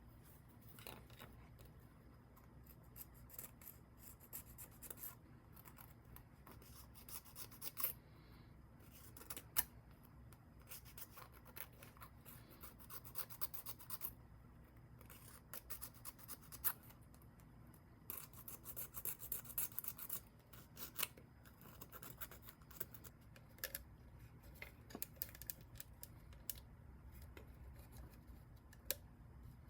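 Hand tools snipping and scraping at small parts: irregular sharp clicks and short spells of scraping, densest about two-thirds of the way through, over a faint low hum.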